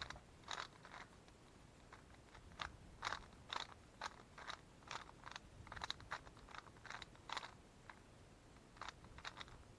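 Moyu Weilong GTS3 M magnetic 3x3 speedcube being turned by hand: a faint, irregular string of short plastic clicks and clacks as the layers turn and snap into place.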